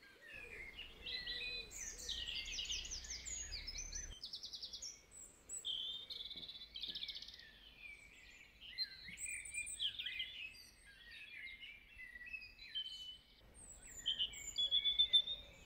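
Songbirds singing, several overlapping songs of chirps, whistled notes and fast trills, with the loudest trill near the end.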